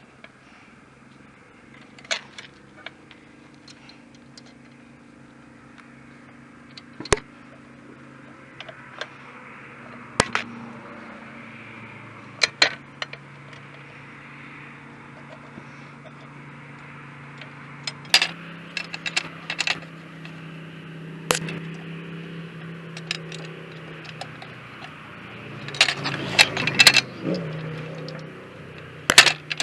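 Scattered sharp metallic clinks and taps of hand tools and bolts being worked on the backhoe's control assembly, several in quick succession near the end. A steady low hum runs underneath.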